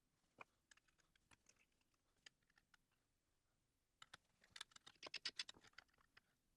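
Faint, scattered clicks and light taps of small hard objects being handled, with a quicker run of sharper clicks about four to six seconds in.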